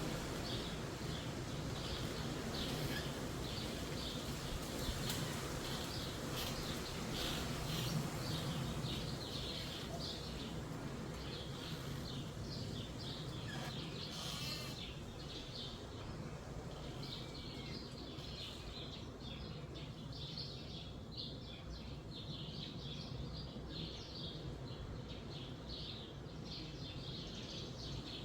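Steady wind rushing through forest trees, with small birds chirping in quick short notes throughout.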